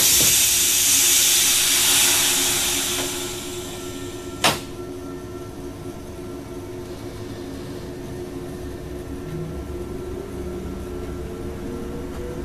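Electric passenger train moving off, heard from the driver's cab: a loud hiss for the first few seconds that fades away, one sharp click about four seconds in, then a steady electric hum with a whine that rises slowly in pitch as the train gathers speed, over a low rumble.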